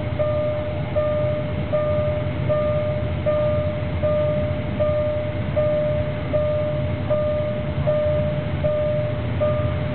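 Level crossing warning signal sounding one repeated electronic tone, about one note every three-quarters of a second, over a steady low engine rumble.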